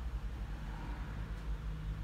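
Low, steady rumble of a motor vehicle, with a faint hiss over it.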